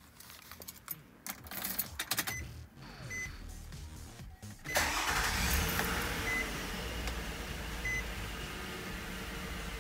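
A few clicks and short beeps, then about five seconds in the 2005 Nissan Murano's 3.5-litre V6 starts and settles into a steady idle. It runs smoothly with no misfire now that the cylinder 6 ignition coil has been replaced.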